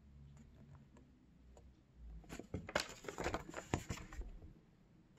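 Thin paper leaflet rustling and crinkling in the hands as it is unfolded and turned over, a cluster of crackles starting about two seconds in and lasting about two seconds.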